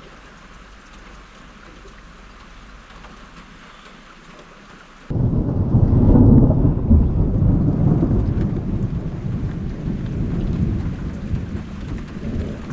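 Light, steady rain, then about five seconds in a sudden clap of thunder that breaks into a deep, loud rumble, rolling on and slowly fading.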